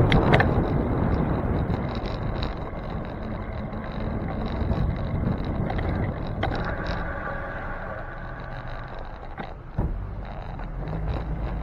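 Wind rumble on the microphone and road noise from a bicycle riding through city traffic. About six and a half seconds in, a steady tone with several pitches sounds for about three seconds, and there are a couple of sharp clicks.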